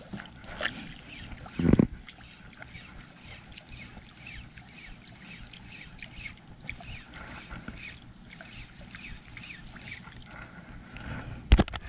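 Water lapping and slapping against the hull of a small fishing boat in a rapid irregular patter, with a dull knock on the boat about two seconds in and a few sharp knocks near the end.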